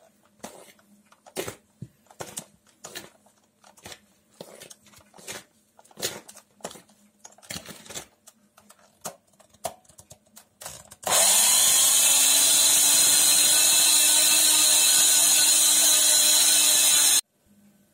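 Old Soviet-era electric hand mixer switched on after about eleven seconds, its motor rising to speed and then running steadily as it beats flour into the batter, before cutting off abruptly about a second before the end. Before it starts, a run of light, irregular taps.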